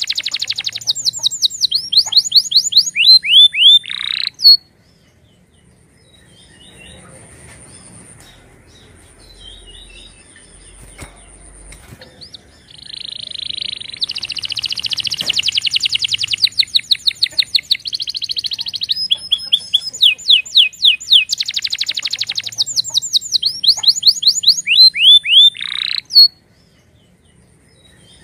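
Domestic canary singing: fast trills of repeated downward-sweeping notes that break off after about four seconds, then, after a pause, a long song of buzzy rolls and rapid sweeping trills that stops abruptly near the end.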